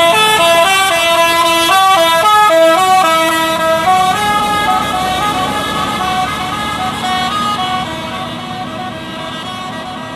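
Bus's Basuri 'telolet' multi-tone horn playing a quick melody of stepping notes. It is loudest in the first four seconds, then grows quieter and stops about seven and a half seconds in.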